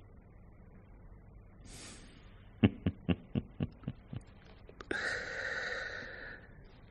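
Radio-drama sound effects: a quick series of about eight light clicks or knocks that fade, then a hissing noise lasting about a second and a half that dies away.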